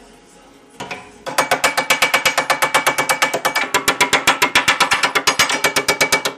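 Rapid, even hammer taps on a thin aluminium seat, about eight a second, starting about a second in, the sheet ringing with each blow as its cut tabs are bent out into air outcuts.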